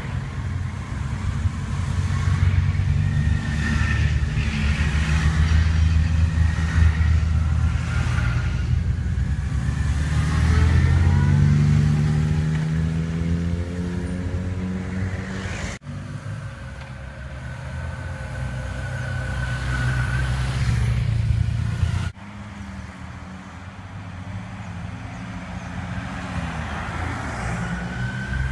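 A column of Yamaha FJR1300 sport-touring motorcycles riding past one after another, their four-cylinder engines running in a steady dense mass. The engine note rises as bikes accelerate away about ten to fifteen seconds in. The sound breaks off abruptly twice, past the middle.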